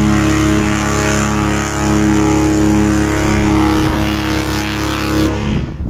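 Cunard cruise liner's horn sounding one long, loud blast of several low notes together, cutting off near the end, as a greeting to a passing sister ship.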